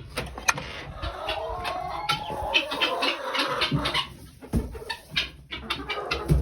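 Domestic chickens clucking, with many short sharp clicks throughout.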